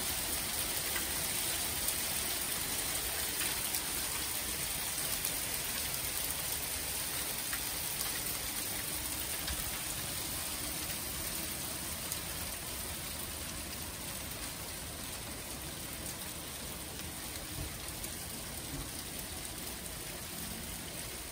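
Small hailstones falling onto the lawn, garden beds and paving: a dense, even hiss of many small ticks, easing slightly toward the end.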